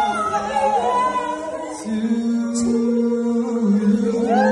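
Music with singing, the voices holding long, steady notes.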